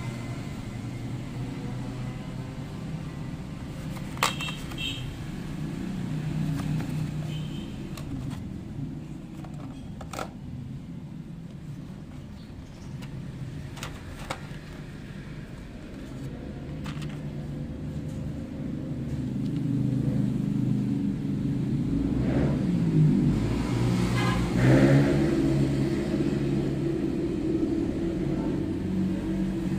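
A low engine rumble, like a vehicle running close by, swells and rises in pitch a little past the twenty-second mark. A few sharp clicks come from a plastic blister tray being handled.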